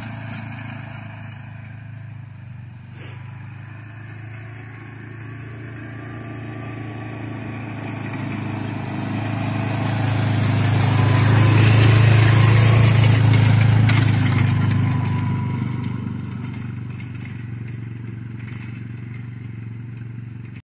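ATV engine running at a steady speed as the quad drives past: the hum grows louder as it approaches, is loudest about halfway through as it passes close, then fades as it drives away.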